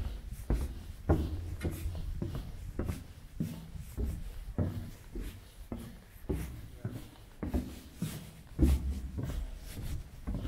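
Footsteps at a steady walking pace, about two a second, over a low rumble.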